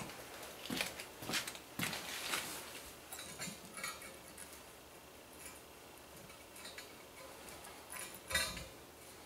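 Scattered light metallic clicks and taps from small hardware being handled at a steel stand's base plate on a concrete floor, with a louder clatter near the end.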